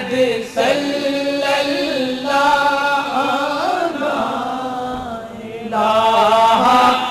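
Devotional chanting in long, held melodic lines, the notes drawn out and bending slowly in pitch, softening briefly about five seconds in before swelling again.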